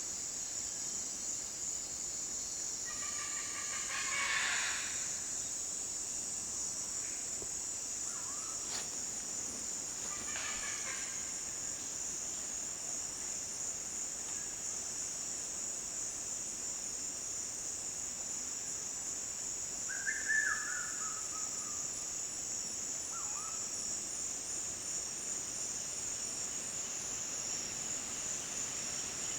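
Amazon rainforest insect chorus: a steady, high-pitched buzz running unbroken. A few short bird calls break in over it, the loudest about twenty seconds in.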